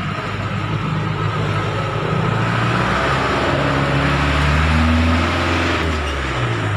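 A motor vehicle engine running, a low rumble that swells about halfway through and eases off near the end.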